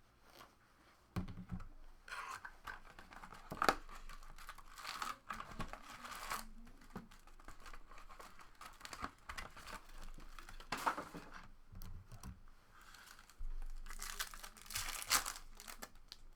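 Trading card packaging being opened by hand: plastic and foil wrappers crinkling and tearing in several spells.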